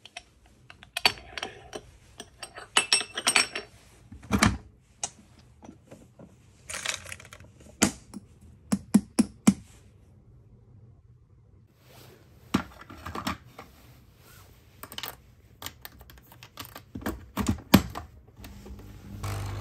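A run of sharp, irregular clicks, clinks and knocks from making a capsule espresso: a porcelain cup and saucer being handled and set down, aluminium Nespresso capsules taken from a clear plastic box, and the capsule machine's lid lever clicked open and shut. There is a short pause a little past halfway.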